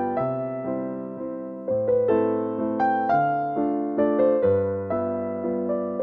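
Slow keyboard music with a piano sound: chords and melody notes struck and left to fade, over bass notes that change every second or two.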